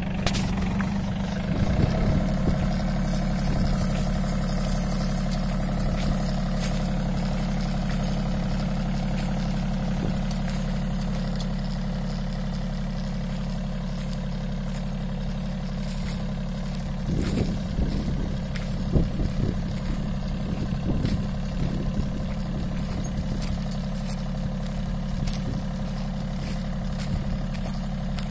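A John Deere tractor's diesel engine runs steadily while driving a tractor-mounted boom sprayer. A few knocks and rattles come about two-thirds of the way through.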